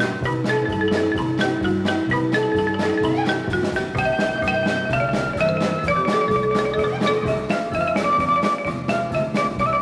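Background music: a marimba-like mallet melody over a steady beat.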